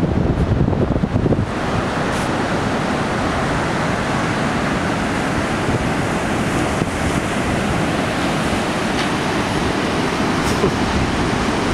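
Pacific surf breaking and washing up a sandy beach in a steady rush. Wind buffets the microphone for about the first second and a half.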